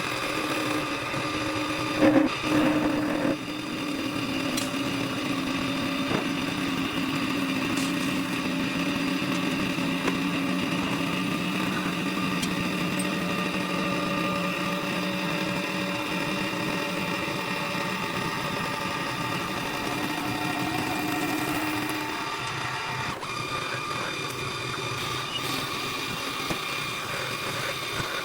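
CNC woodworking lathe running: a steady machine whine made of several tones, with a louder rough burst about two seconds in and a shift in the tones about 22 seconds in.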